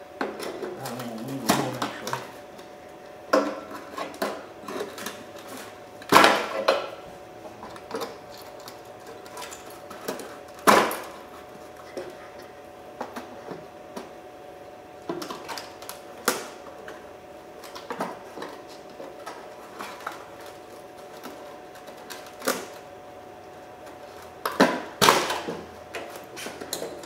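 Irregular clicks, snaps and clatter of pliers squeezing plastic retaining tabs and a plastic bumper pad being worked loose from a rusted steel bumper, with a few louder sharp snaps scattered through.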